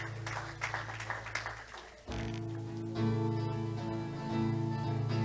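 Live worship band with acoustic and electric guitars playing strummed chords over a held bass note; the playing drops away briefly about two seconds in, then steady sustained chords start up again and grow louder.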